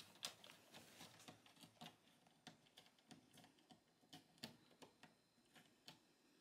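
Quiet, irregular small clicks and taps, several a second: a Russian Blue cat's claws and paws working on the top of a wooden shelf.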